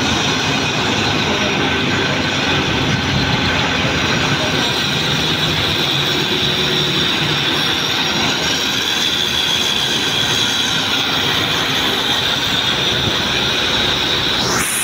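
Steady, loud mechanical noise of traffic and site machinery in a road underpass, with a constant high whine. A short rising whine comes near the end.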